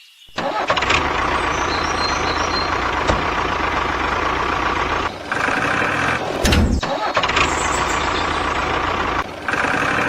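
An engine running steadily, with short breaks a little past halfway and near the end, and a low thump between them.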